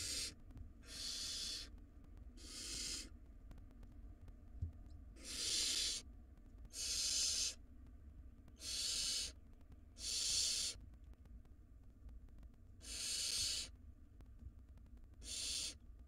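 Barn owl nestlings giving their rasping hiss calls, about eight in a row, each lasting under a second and coming every one to two seconds.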